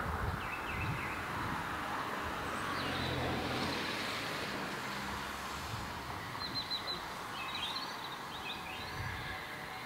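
Small birds chirping, mostly in the second half, over the faint low rumble and hiss of a steam locomotive approaching.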